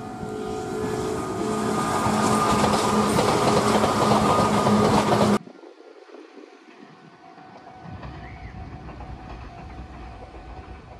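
Red Meitetsu electric train running past, a loud rushing rumble with steady motor and gear tones that grows louder. About five seconds in it cuts off abruptly, leaving a much quieter low rumble while another train is still far off down the line.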